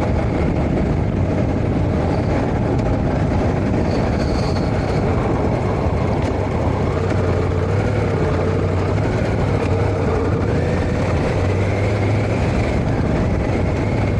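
2022 Triumph Tiger 1200 Rally Explorer's three-cylinder engine running under way at a fairly steady speed. Its note rises and falls slightly, with a beat that sounds like a single cylinder. Steady wind and road noise run underneath.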